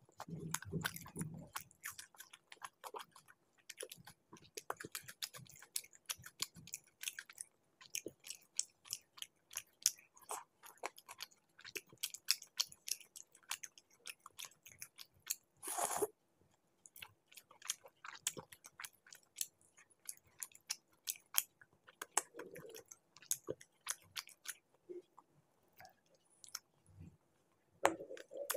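Close-miked chewing and biting of chicken masala wrapped in laccha paratha: a dense run of short wet mouth clicks, with one longer noisy burst about halfway through.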